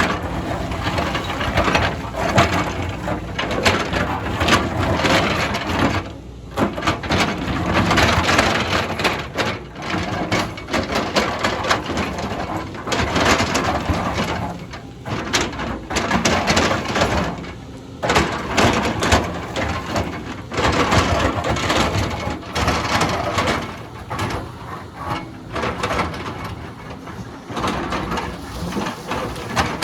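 Excavator bucket digging into a hillside, crunching and scraping through soil and rock, with the machine's engine under it. The noise drops briefly a few times, around 6, 15 and 18 seconds in.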